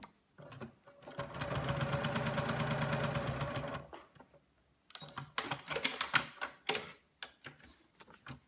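Domestic electric sewing machine stitching a seam through fabric and foundation paper in a steady, rapid run of about three seconds, starting about a second in. Then clicks and paper rustling as the stitched paper-backed piece is pulled out from under the presser foot.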